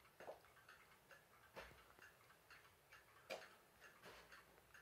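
Westerstrands gilded cartel wall clock's clockwork movement ticking faintly and steadily, showing the movement is running.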